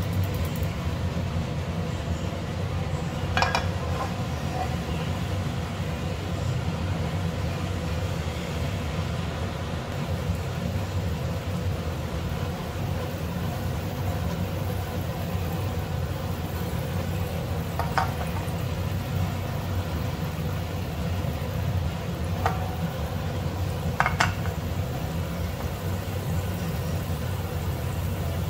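Butter melting and sizzling gently in a nonstick frying pan on a gas burner, over a steady low rumble. A spatula clicks against the pan a few times.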